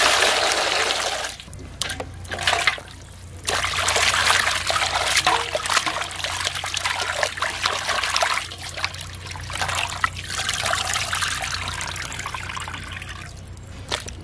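Water poured into a large aluminium basin of raw chicken pieces, rushing for the first second and a half, then splashing and sloshing in several long stretches as the pieces are washed by hand in the water.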